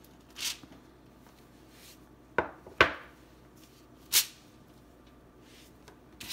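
A few short knocks and scrapes of baking dishes being handled: a soft scrape near the start, two sharp knocks about two and a half seconds in, and another scrape about four seconds in, with quiet room tone between.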